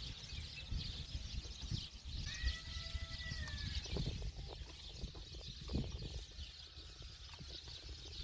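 Faint clicks and knocks of hand work on the engine's distributor and ignition points, over a steady outdoor background hiss. About two seconds in comes one drawn-out animal call lasting under two seconds.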